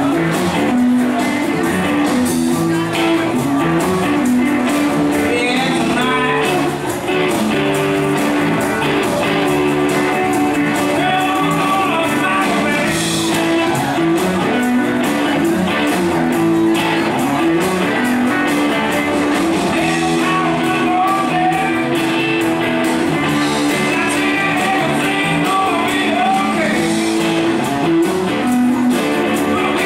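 Live rock band playing at a steady level: electric guitars, organ, bass guitar and drums together, with held organ chords under the guitar.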